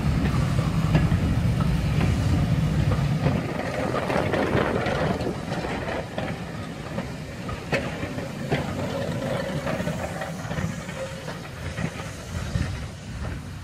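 Passenger coaches of a steam-hauled heritage train rolling past close by: a heavy rumble of steel wheels on the rails with scattered sharp clicks and clacks, fading as the last coach goes by.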